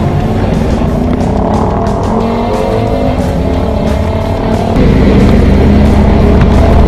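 Motorcycle engine running while riding, with wind and road noise on the camera microphone; the sound gets louder about five seconds in. Background music plays along.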